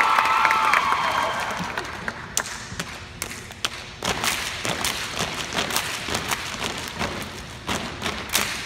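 Crowd cheering and whooping that dies away in the first second or two, then a step team's stomps and hand claps ringing in a large arena. The hits come sparsely at first and settle into a quicker, steady rhythm from about four seconds in.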